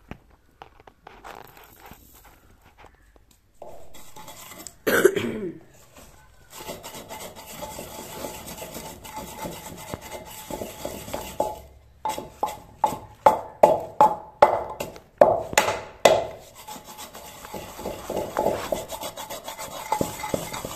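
Wooden pestle grinding dried coriander seeds in a clay mortar: a rough, gritty scraping, with a run of regular strokes about three a second in the middle. There is a short loud burst about five seconds in.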